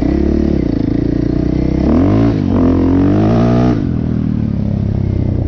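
KTM 450 EXC-R dirt bike's single-cylinder four-stroke engine running on the move. It revs up about two seconds in, dips briefly and holds higher revs. A little after halfway it drops back as the throttle is closed.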